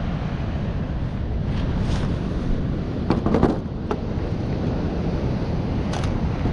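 Strong wind buffeting the microphone with ocean surf behind, a steady low rumble. A brief clatter of knocks comes about three seconds in, and a single click near the end.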